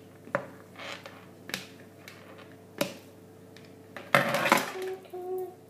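A few sharp, isolated clicks and knocks of tableware and food being handled on a plate, about a second apart, then a short, louder clatter about four seconds in.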